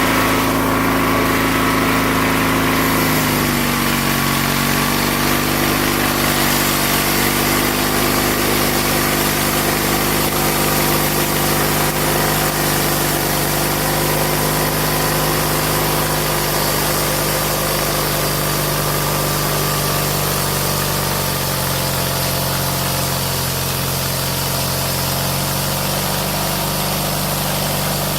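Small petrol engine from a Snapper lawn mower, driving a homemade sawmill, running steadily; its pitch drops slightly about three seconds in, then holds.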